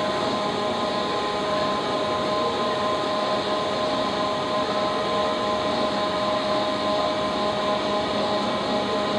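Steady machine hum with a few held tones as a vintage aircraft's main landing gear is retracted by its hydraulic system during a gear swing test with the aircraft on jacks.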